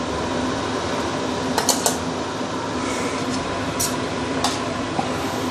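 Metal clinks on a stainless-steel pan and plate as fried noodles are served out: a quick cluster of three just under two seconds in, then two single clinks later. A steady fan hum runs beneath them.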